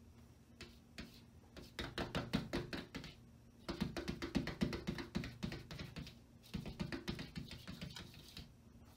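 Cat chattering: three bouts of rapid, clicking chirps, several a second, the excited sound a cat makes while watching prey it cannot reach through the glass.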